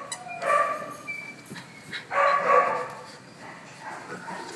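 Pit bull puppies barking in play: two short bouts of high barks, the second about two seconds in.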